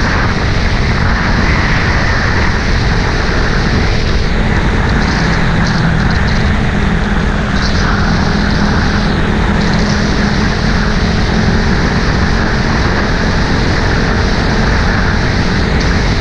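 Steady, loud vehicle running noise: an engine hum mixed with heavy rushing noise, as from a moving vehicle.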